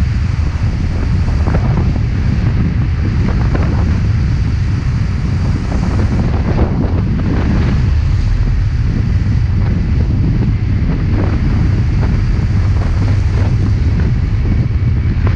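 Wind buffeting the camera microphone in a steady heavy rumble, with gusty surges, over the wash of waves around the boat at sea.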